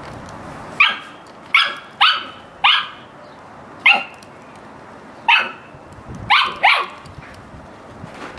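Samoyed puppy barking at a cat: about eight short, high-pitched yaps, each dropping in pitch, coming at irregular intervals.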